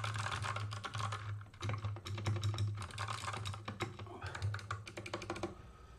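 Fast typing on a GK61 60% mechanical keyboard with Kailh Box Pink switches and PBT keycaps: a quick, uneven run of keystrokes that thins out near the end.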